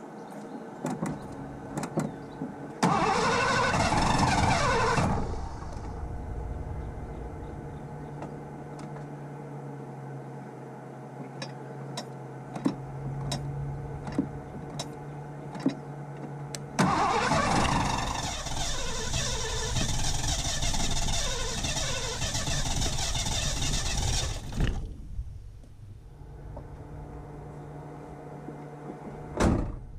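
Carbureted Ford 302 V8 running: it surges loudly for about two seconds some three seconds in, settles to a steady idle with a few sharp ticks, then surges again for about eight seconds before dropping back to a quieter run. The engine fires but has trouble staying running on its own.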